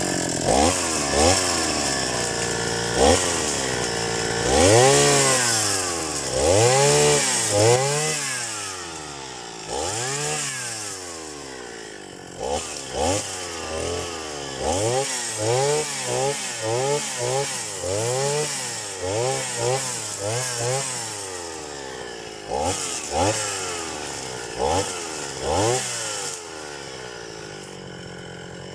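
Small petrol engine of a grass cutter revving up and down again and again, in long swells over the first half and quicker blips of throttle later.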